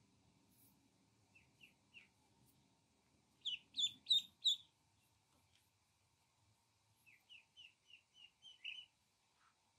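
Ducklings peeping: a few faint peeps, then a loud run of four quick peeps about three and a half seconds in, and a softer run of about seven falling peeps near the end.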